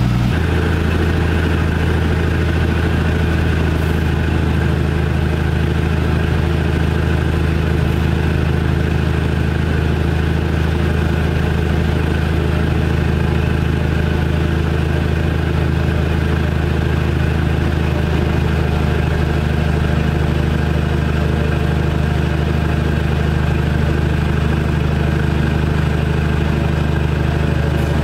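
GE 25-ton diesel locomotive engine running steadily with a low, even drone.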